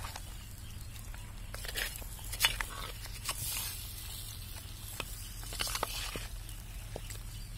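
A spoon stirring thick, wet cooked meat and bones in a clay pot: squelching with scattered clicks and scrapes against the pot and bones, the sharpest knock about two and a half seconds in.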